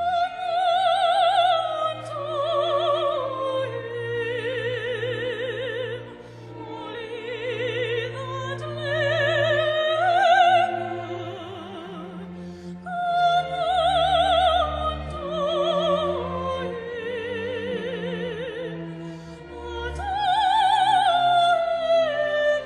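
Classical solo singing in operatic style with wide vibrato, carrying a melody in long phrases over sustained low string notes from a string orchestra.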